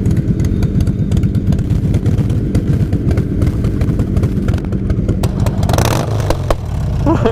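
Loud Harley-Davidson V-twin exhaust running with a rapid, uneven pulse. There is a brief sharp crack about six seconds in.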